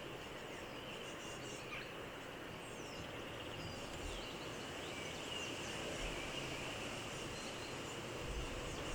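Steady outdoor background hiss with faint, short, high bird chirps scattered throughout.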